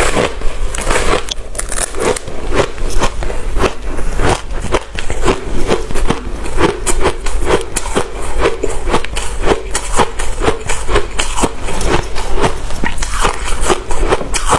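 Fluffy freezer frost ice being bitten off a block and chewed close to the microphone: rapid crunches, several a second.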